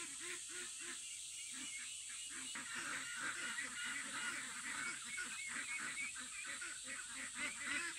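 A chorus of many animals calling: short calls repeating several times a second and overlapping, growing louder a few seconds in, over a steady high hiss.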